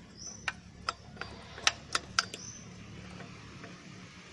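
Light metallic clicks and taps of a brake pad and its pin being worked loose by hand from a Yamaha R15's rear disc brake caliper: about six sharp ticks in the first two and a half seconds, then only faint ones.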